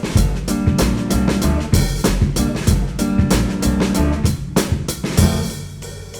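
A band playing an instrumental passage: a drum kit beat of kick, snare and rimshots over sustained bass and other pitched instruments. Near the end the playing thins out and drops in level.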